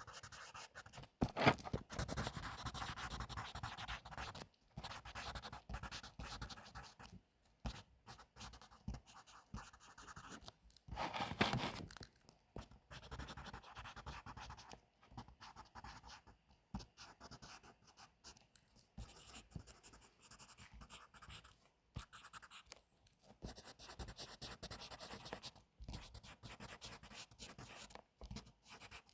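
Pencil writing on paper: a continuous scratching with short breaks. It is interrupted by two louder noises of about a second each, one about a second and a half in and one about eleven seconds in.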